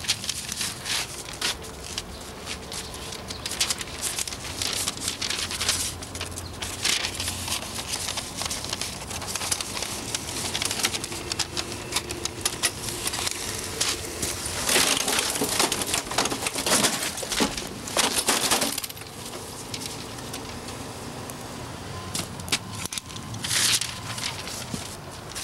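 Paper rustling and crackling with scattered sharp clicks, and a louder, denser stretch of rustling for about four seconds past the middle.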